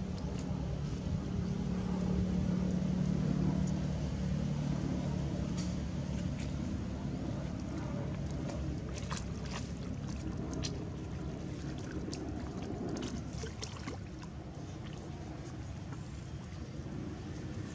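A low, steady motor hum that fades after about six seconds, over light water splashing as a monkey swims with her baby on her back, with scattered short sharp clicks.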